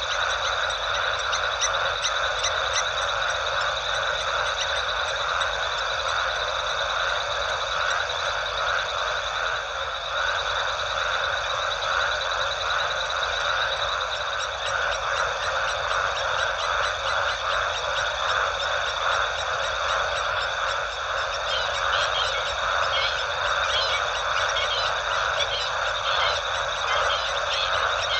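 Dense night chorus of many frogs calling together: a steady din of rapid overlapping pulses, with a thin, steady, high-pitched tone running above it.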